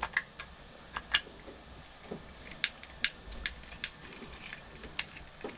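An Allen key and small screws being handled on an electric scooter's rear wheel: irregular sharp clicks and light metal taps, about two a second.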